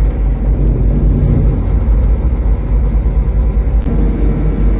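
Steady low rumble of a vehicle driving on the highway, heard from inside the cab.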